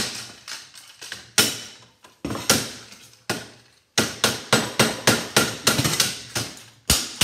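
Hammer blows on a sump pump's plastic switch housing clamped in a bench vise, knocking it apart to reach the relay inside: a run of sharp strikes, spaced out at first, then quicker, about four a second, in the second half.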